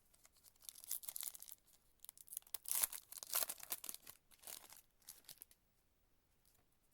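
Plastic foil wrapper of a baseball card pack being torn open and crinkled: a short crackle about a second in, then a longer, louder crinkling from about two to five seconds.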